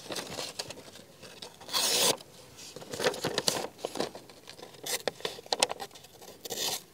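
A sharp folding knife with a wide, cleaver-shaped blade slicing through material in several separate strokes, with a scraping, tearing sound; the longest cut comes about two seconds in, with shorter ones after. These are cuts made to test the blade's sharpness out of the box.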